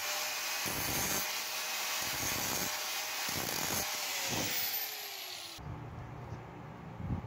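Angle grinder with an abrasive disc grinding a steel piece clamped in a bench vise: a steady grinding hiss that pulses with each pass, and a whine that falls in pitch before the noise stops abruptly about five and a half seconds in. Only faint quiet sounds follow.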